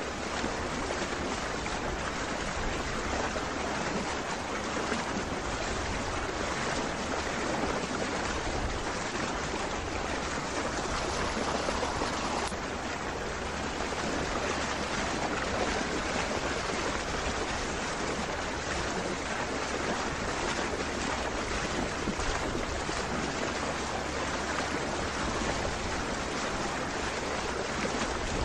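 Steady rush of water and wind from a boat moving across a lake, with a low rumble underneath.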